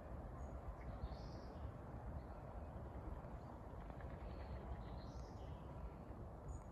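Faint outdoor ambience: a steady low rumble with a few short bird calls, one about a second in and a couple more around five seconds.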